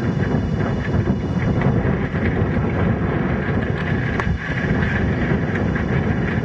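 Wind buffeting the camcorder microphone: a steady, loud rumble, with a sharp click about four seconds in.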